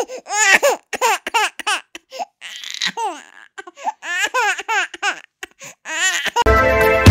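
A baby's voice in a string of short, high-pitched bursts, each rising and falling in pitch, with brief gaps between them. Electronic music comes in near the end.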